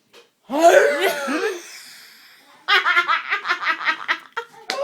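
Young people laughing: a high voiced sound with bending pitch, then a run of rapid giggles at about six a second.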